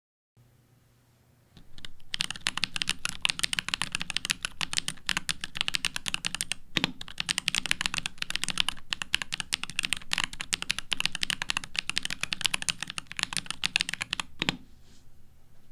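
Fast typing on a Vortex PC66 mechanical keyboard with Gateron Baby Kangaroo tactile switches on a PC plate: a dense run of key clacks that starts about two seconds in and stops shortly before the end, with a heavier stroke about seven seconds in and another as it stops.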